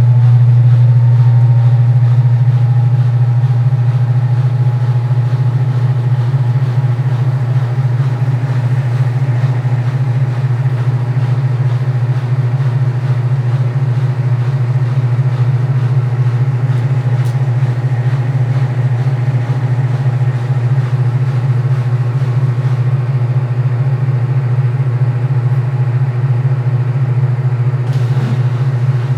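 Midea 12 kg washing machine running with a loud, steady low hum. Fainter whining tones rise and level off at the start, and there is a brief click near the end.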